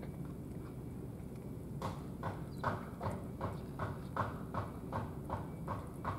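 Cat chewing food from a tray with a rhythmic wet smacking, about two and a half chews a second, starting about two seconds in.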